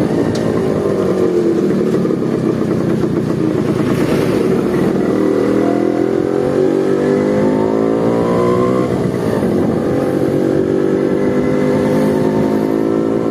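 Motorcycle engine running loud with its dB killer removed, pulling hard under acceleration. Its pitch sags at first, climbs steadily for several seconds, drops sharply about nine seconds in, then climbs again.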